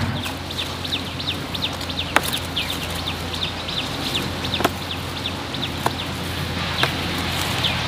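A bird chirping over and over, short high downward chirps about three or four a second, with a few sharp clicks in between.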